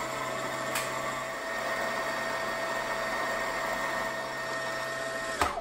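Baby Lock Aventura II sewing machine's motor running the bobbin winder at a steady high speed: an even whirring hum with a steady whine. It stops suddenly with a click near the end.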